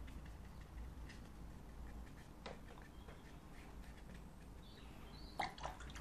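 Quiet studio room tone with a steady low hum and a few faint, short clicks, two of them close together near the end.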